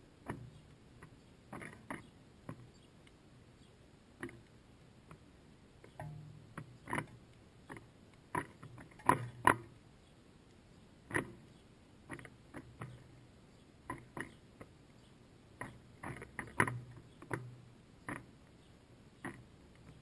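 House sparrows pecking at birdseed in a feeder: irregular sharp taps and clicks of bills on seed and the feeder, loudest a little past halfway.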